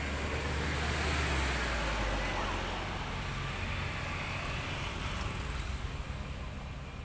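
Road traffic noise: a passing vehicle's low rumble and tyre hiss swell about a second in, then slowly fade.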